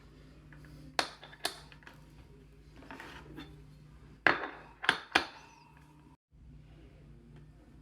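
Five sharp clicks and clacks of small hard parts or tools being handled: two about a second in, then three in quick succession around four to five seconds in, some with a brief metallic ring. A steady low hum runs underneath.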